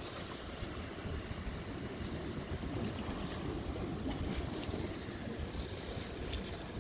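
Steady wash of river water against a rocky bank, with wind rumbling on the microphone.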